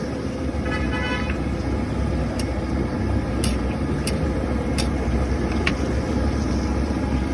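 Busy street ambience with a steady traffic rumble, a short vehicle horn toot about a second in, and a few sharp metallic clinks scattered through.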